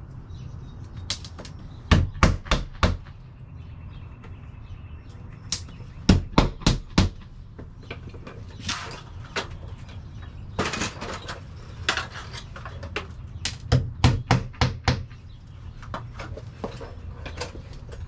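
Hammer driving nails into a wall: three bursts of about five quick strikes each, with scattered single knocks and clatter in between.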